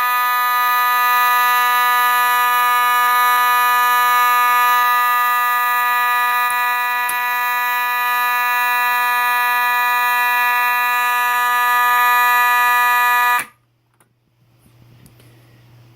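Faraday 6120 fire alarm horn, set off from a pull station, sounding one steady, buzzing tone without a break for about thirteen seconds, then cutting off suddenly.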